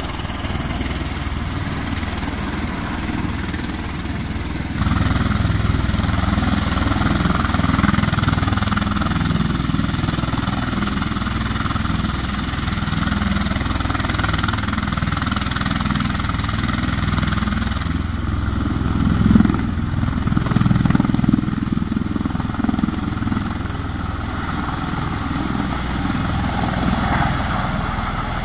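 V-22 Osprey tiltrotor flying low in helicopter mode, its rotors and engines making a steady mechanical drone that gets louder about five seconds in.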